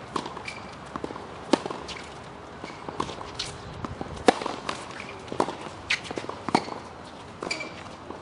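A tennis rally on a hard court: a string of sharp pops as the ball is struck by rackets and bounces, the loudest about four seconds in, with players' footsteps on the court between shots.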